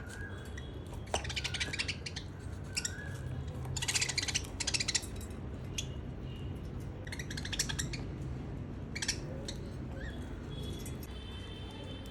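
Baby budgie making a few short soft chirps, with several short bursts of rapid clicking, the loudest about four seconds in.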